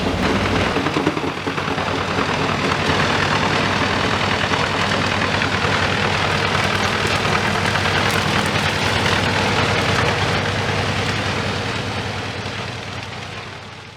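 Doppstadt DH608 wood chipper running steadily with a deep engine hum and dense mechanical noise, fading out near the end.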